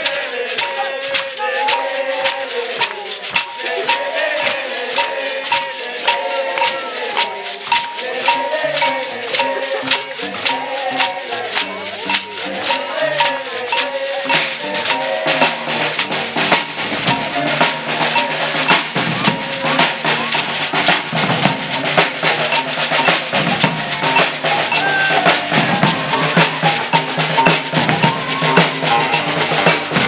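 Maracatu percussion: metal ganzá shakers and a beaded agbê rattling in a fast, steady rhythm while voices sing over them. From about halfway the alfaia bass drums and snare drums come in stronger and the playing grows slightly louder.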